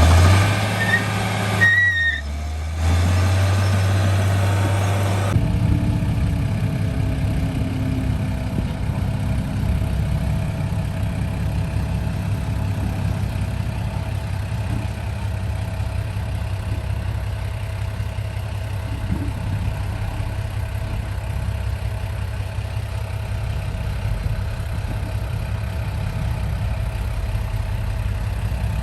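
Heavy diesel engine of earthmoving machinery running with a steady low drone. There are a few short high tones near the start, and the sound changes abruptly about five seconds in.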